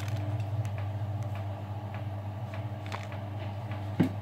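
Front-loading washing machine's drum motor running steadily as the drum turns with wet laundry, trying to get up to speed for an interim spin, with a few light ticks and one short knock near the end.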